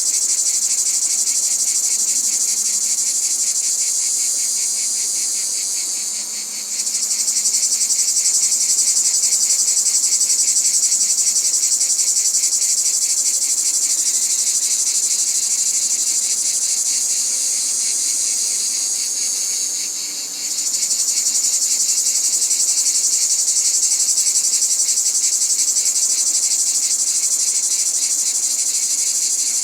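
Cicadas singing in a loud, continuous, high-pitched drone with a fast pulsing texture. The chorus dips briefly twice, about six seconds in and about twenty seconds in, then swells back up.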